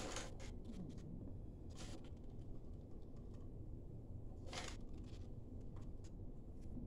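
Plastic cups of paint picked up and set down on a plastic-covered table, making a few light taps and knocks, over a low steady hum.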